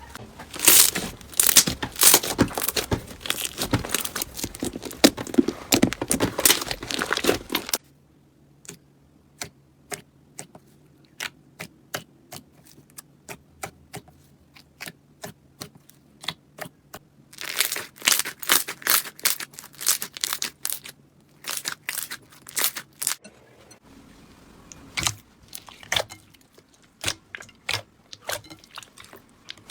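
Slime being pressed and worked by hand, giving crackling, popping clicks. The clicks come thick and fast for the first several seconds, thin out to scattered pops, then come thick again for a few seconds past the middle before thinning out once more.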